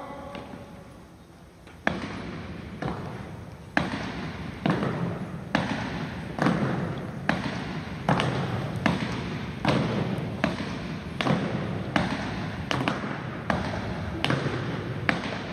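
A drill team's footfalls striking a hardwood gym floor in unison as they march in step, one sharp stomp a little under every second, each echoing through the hall.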